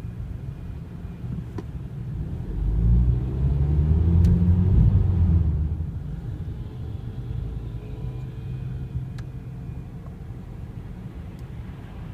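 BMW F30 320i on the move: a steady low road and tyre rumble that swells much louder for about three seconds, a few seconds in. Faint thin high tones come and go over the rumble.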